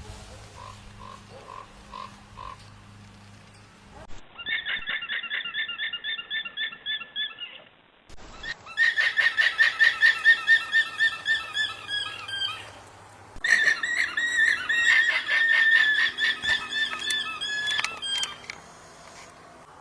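Alpacas giving shrill alarm calls: a few faint, spaced calls, then three runs of rapid, evenly pulsed high-pitched calls about four a second, each run lasting a few seconds.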